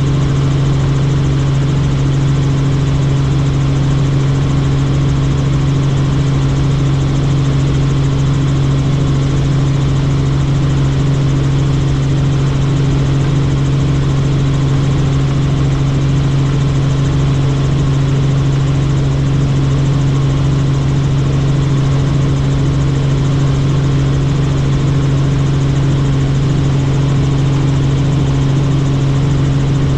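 Helicopter in flight, heard from on board: a steady, unchanging drone of rotors and turbine engine with a strong low hum.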